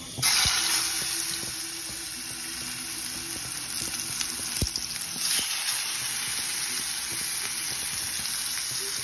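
Seasoned chicken fillet and beef steak frying in hot oil in a pan, sizzling: the sizzle starts suddenly as the chicken goes in and swells again about five seconds in as the steak is laid beside it.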